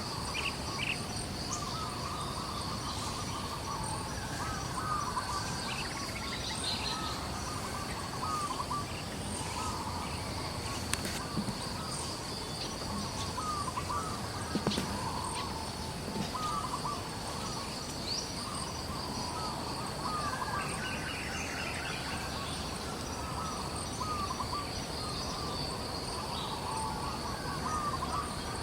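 Outdoor natural ambience: a steady high-pitched insect drone, with repeated short chirping bird calls throughout.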